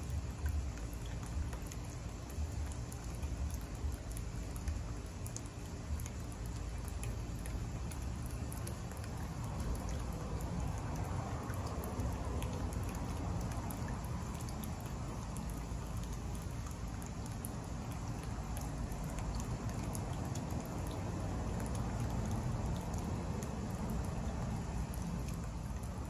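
Birdbath fountain jet spraying and water droplets pattering steadily into the shallow bowl, with a low rumble underneath.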